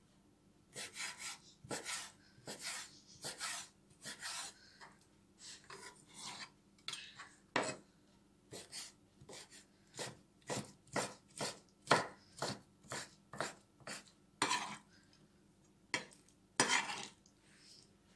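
Chef's knife dicing squid on a wooden cutting board: an irregular run of short, sharp knocks of the blade on the board, roughly two a second, with a few longer slicing strokes.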